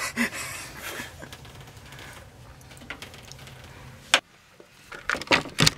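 Knocks and clatter of a frying pan being handled and set down on a gas stove, over a low steady hum that stops after a sharp click about four seconds in, then a few more knocks near the end.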